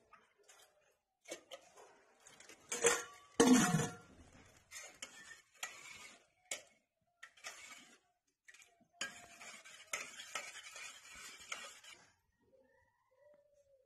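Steel utensils clinking and knocking as vessels are handled and set down, with one heavier knock a few seconds in; then a steel spoon stirring and scraping inside a steel pot for about three seconds.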